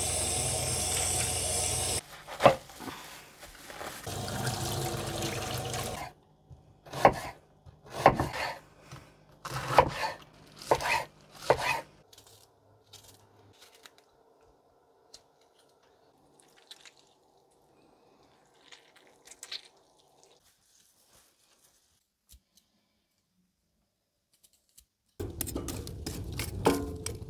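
Water running from a sink tap, then a run of about ten sharp knife knocks as vegetables are cut. Near the end comes a steady rushing noise as a hand fan blows air over burning charcoal in a small grill.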